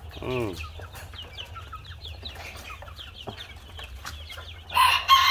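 Baby chicks peeping, a steady stream of short, high, falling chirps. Near the end a much louder, harsher chicken call breaks in.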